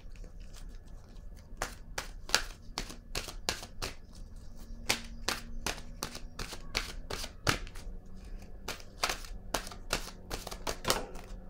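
A deck of cards being shuffled by hand, giving a string of short, irregular clicks and slaps as the cards strike one another.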